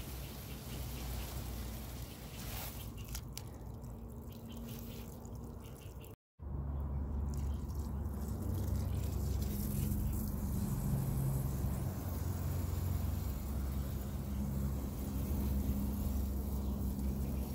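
Garden hose spray nozzle spraying water steadily onto vegetable beds, a continuous wash of water over a strong low rumble on the microphone. The sound drops out completely for a split second about six seconds in, then comes back louder.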